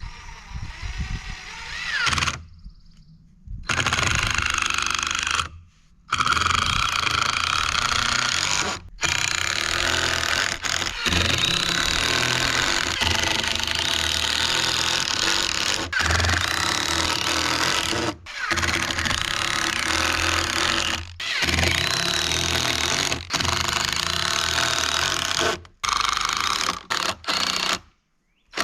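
Power tools cutting and fastening lumber, heard in a run of short clips that start and stop abruptly: a chainsaw cutting short 1x4 pieces and an impact driver screwing them across the 4x4 joints.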